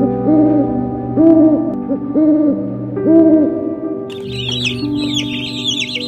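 Owl hooting: four short hoots about a second apart, over steady background music. About four seconds in, the hoots give way to a dense, high-pitched peeping of ducklings.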